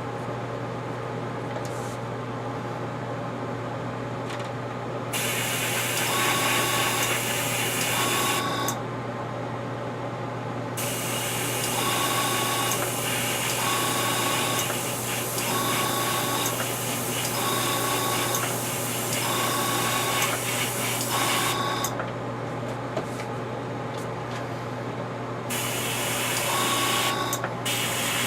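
Airbrush compressor humming steadily, with the airbrush hissing in spells of several seconds as paint is sprayed, stopping and starting again.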